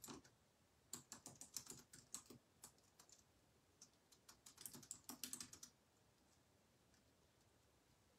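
Faint typing on a computer keyboard: two spells of quick keystrokes with a few scattered clicks between them, stopping about two thirds of the way through.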